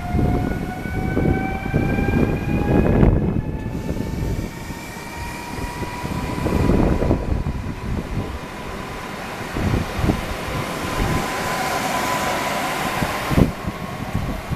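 ED78 electric multiple unit getting under way: its traction drive gives a whine of several tones that climbs slowly in pitch as it gathers speed, over the rumble of the train. A short thump comes near the end.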